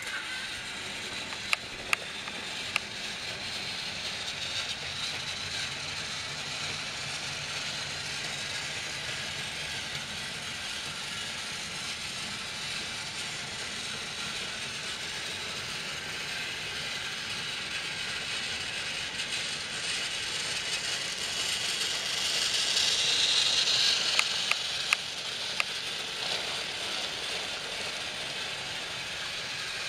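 Battery-powered Trackmaster toy trains running on plastic track: a steady whirring of geared toy motors, growing louder for a couple of seconds about three-quarters of the way through, with a few sharp clicks near the start and again just after the loudest part.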